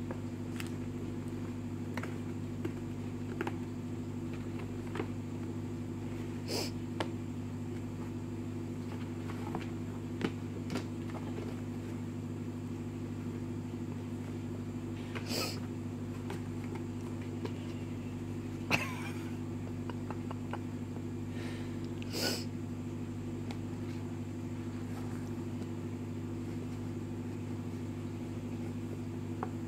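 A steady low machine hum, with a few light taps and scratches of kittens moving on a cardboard box; the sharpest tap comes about two-thirds of the way in.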